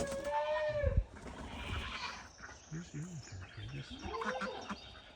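Turkey hen calling softly: one drawn-out note of about a second at the start, then a few short, low, quieter notes.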